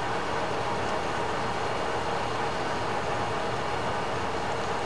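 Class 142 Pacer diesel multiple unit running, a steady, even noise with no change in level.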